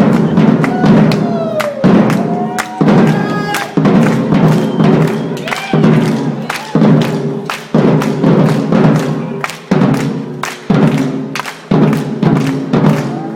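Percussion ensemble drumming: a heavy drum stroke about once a second over a dense pattern of faster strokes, with a few short gliding tones over it in the first few seconds.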